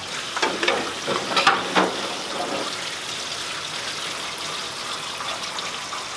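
Water from a pull-down spray faucet running steadily into a stainless steel sink as dishes are rinsed, with several short clinks and clatters of dishes in the first couple of seconds.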